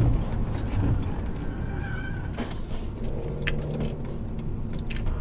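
Car driving, heard from inside the cabin: steady engine and road noise, with a few short clicks and a brief high-pitched squeak about two seconds in.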